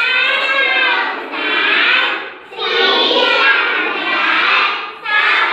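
A class of young children chanting a number together in unison, in two long drawn-out phrases with a short break about two and a half seconds in.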